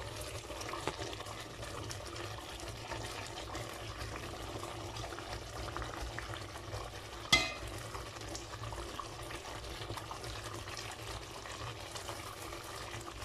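Thick beef curry simmering in a steaming steel pot, a steady soft bubbling, with one sharp clink about seven seconds in.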